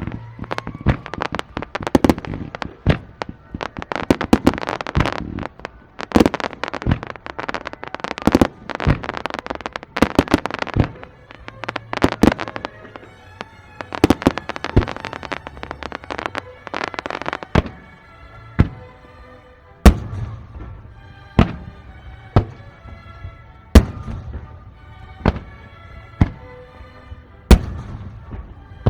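Fireworks display: a dense barrage of shell bursts for most of the first eighteen seconds, thinning to single loud bangs every second and a half or so. Music plays underneath.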